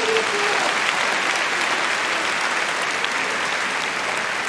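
Audience applauding steadily, a dense even patter of many hands clapping.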